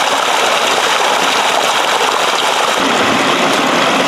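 Water of a small stream rushing and splashing over rocks and a little waterfall: a steady, even rush.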